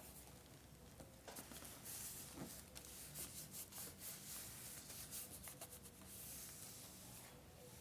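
Faint scratchy rubbing on paper in quick, irregular strokes, starting about a second in and easing off near the end.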